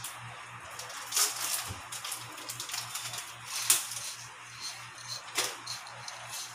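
Irregular crisp clicks and rustles of dry breadcrumbs and squid pieces being tossed and pressed by hand in a bowl, with a sharper click a little past the middle.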